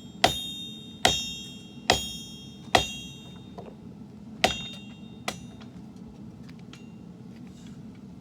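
Hammer blows on hot sword steel over an anvil: six sharp, ringing strikes about once a second, with a short pause after the fourth, then a few faint taps. A steady low hum runs underneath.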